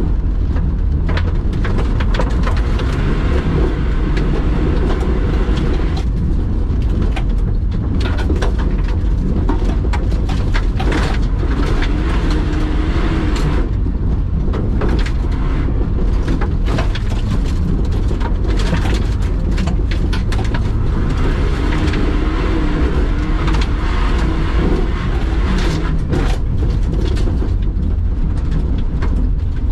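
Car engine running hard, its pitch rising and falling as the driver works the throttle, heard from inside the cabin. Tyres are crunching over loose dirt and gravel on a rallycross course, with a constant crackle of grit and stones striking the car.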